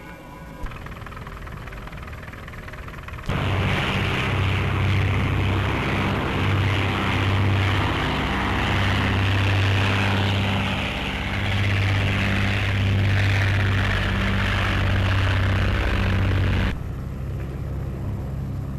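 Flying boat's piston aircraft engines and propellers running at high power, a steady drone with a deep hum. It starts abruptly about three seconds in and cuts off abruptly near the end, leaving a quieter sound.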